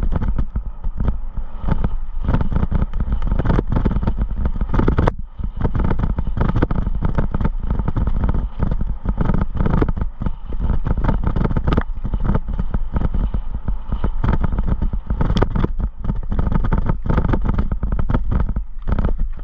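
Wind rushing over the camera microphone with constant rattling and knocking as it moves fast down a rough dirt singletrack, dipping briefly about five seconds in.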